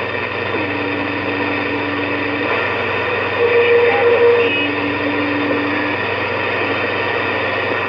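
CB radio receiver putting out steady static hiss on an open channel. A low steady whistle sounds twice and a higher one once, each lasting a second or two.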